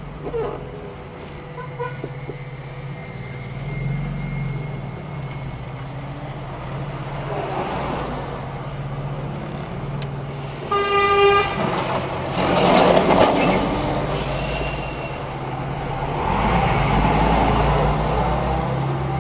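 Car engine running steadily while driving through town traffic, with one short car horn honk about eleven seconds in. Louder rushes of passing-vehicle noise follow the honk.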